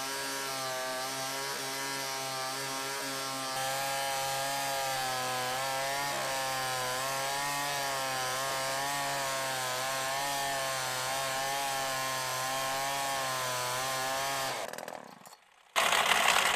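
Homelite XL 26.2cc two-stroke chainsaw power head driving a Cobra chainsaw winch, running steadily with a slightly wavering pitch as it winds in cable under the load of pulling a car. It dies away about fifteen seconds in, and after a short lull a loud, rough burst of noise lasts about two seconds.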